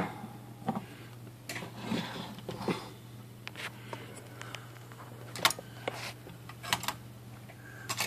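Scattered clicks and knocks from a folding Corona manual typewriter being handled and turned upright on the bench after its draw band is fitted, over a low steady hum.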